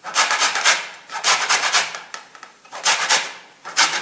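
Lemon rind being grated on a flat metal hand grater: quick rasping strokes in three short runs, with brief pauses between them.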